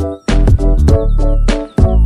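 Background electronic music with a deep bass and sharp percussive hits on a steady beat, dropping out briefly twice.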